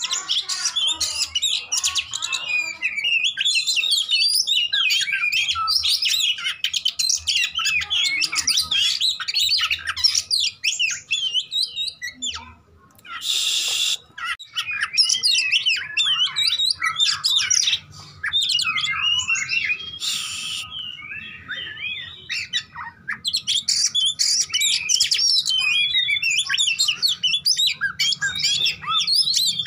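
Oriental magpie-robin (kacer) in full, aggressive fighting song: a fast, continuous stream of varied high whistles, trills and mimicked notes, broken twice by a short harsh burst, about thirteen and twenty seconds in.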